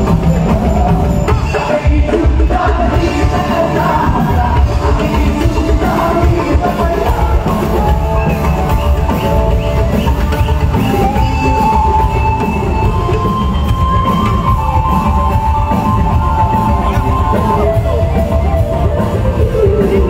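Live band playing loud rock-style music with singing over a heavy, steady bass and drum beat.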